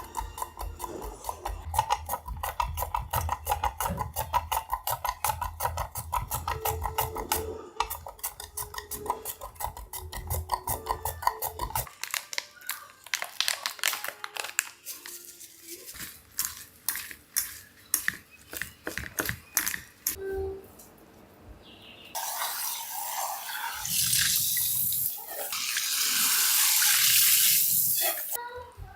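Kitchen knife chopping rapidly on a cutting board, the strokes slowing and thinning out about halfway through. Near the end a tap runs into the sink for about six seconds.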